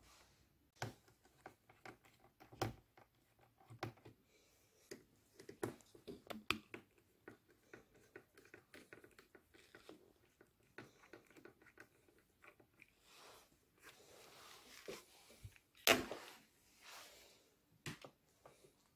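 Scattered small clicks, taps and plastic scraping from the back cover of an HP ProBook 450 laptop being worked loose by hand, with a louder click about sixteen seconds in.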